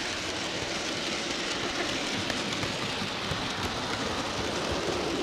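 HO scale model train wagons rolling along the track, heard from a camera riding on one of the wagons: a steady, noisy rolling sound of wheels on rails.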